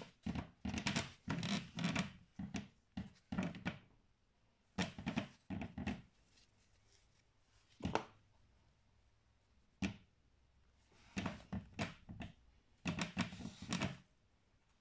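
Handling noise from gloved hands working at an electric cooker's sheet-metal back and terminal block: irregular bursts of rubbing and scraping, with a sharp knock about eight seconds in and another near ten seconds.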